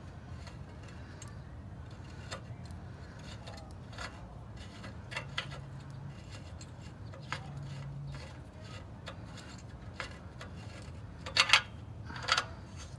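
Light, scattered metallic clicks and ticks as a new oxygen sensor is turned by hand to start its threads into the exhaust pipe's threaded bung, with two sharper clicks near the end.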